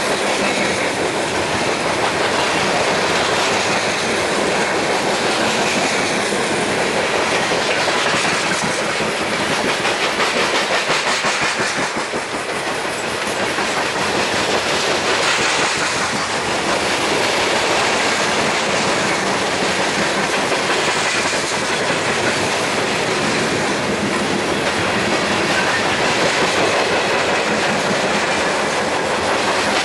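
Empty coke cars of a freight train rolling past close by: a steady rumble and rattle of steel wheels with a clickety-clack over the rail joints, swelling slightly every few seconds.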